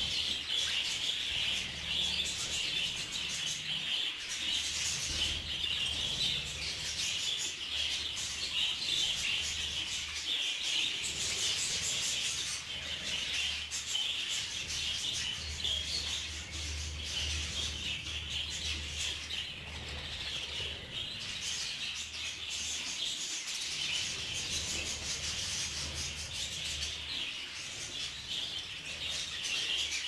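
A flock of budgerigars chattering and chirping continuously in a dense, unbroken warble while they feed from a shared bowl.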